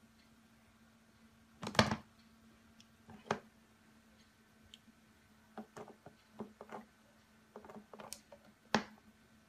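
Irregular sharp clicks and taps of a cat's paws and claws striking the plastic nozzle of a humidifier. The loudest comes about two seconds in, with a cluster of lighter taps in the second half, over a faint steady hum.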